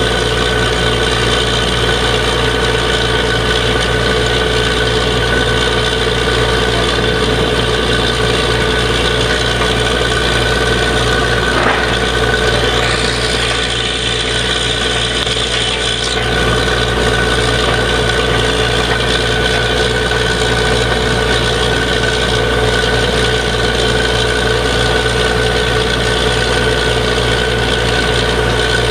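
Truck-mounted borewell drilling rig's engine and air compressor running with a steady, loud drone, dipping slightly for a few seconds midway.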